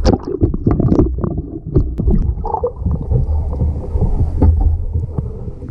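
Wind rumbling on the microphone, with a run of irregular sharp clicks and clinks of small metal junk being handled and knocked together.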